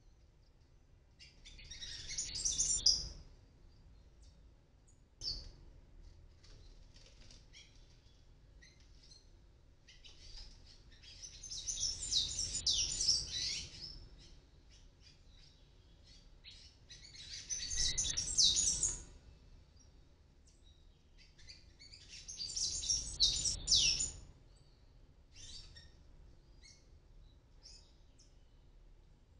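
Palm tanagers calling in four bursts of fast, high twittering chatter, each lasting one to four seconds, with long pauses between them. A single short tap sounds about five seconds in.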